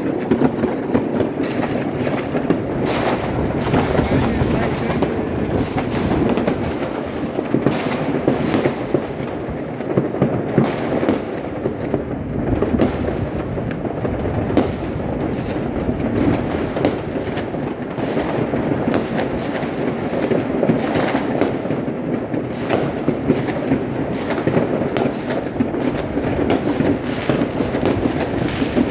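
Fireworks and firecrackers going off without pause: a dense, loud barrage of overlapping bangs and crackles.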